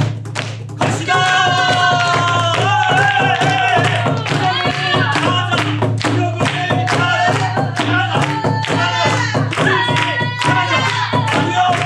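Pansori-style singing with long, bending held notes over the beat of a buk barrel drum, with the audience clapping along in rhythm.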